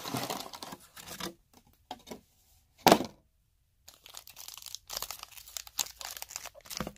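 A box of foil-wrapped hockey card packs being torn open and the packs handled: tearing and crinkling of cardboard and foil wrappers. One loud, sudden sound comes about three seconds in, followed by a brief dead gap.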